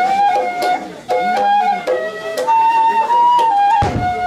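Transverse flute playing a slow melody, moving between held notes with a few quick ornamented turns. There is a single low thump just before the end.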